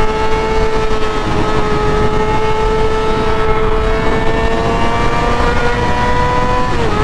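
Kawasaki ZX6R inline-four sport bike engine through an M4 GP exhaust, held at high revs while riding. The pitch climbs slowly, then dips briefly and picks up again near the end.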